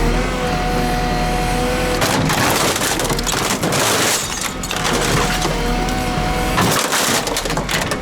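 JCB 3CX backhoe loader's diesel engine running under hydraulic load while its bucket crushes old washing machines: the sheet-metal casings crunch and crack about two seconds in and again near the end, with the engine's steady hum between.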